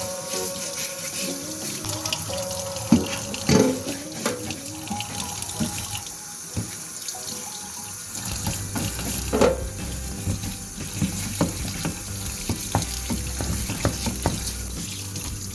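Water running from a kitchen tap into the sink, with scattered knocks and clinks against the sink throughout.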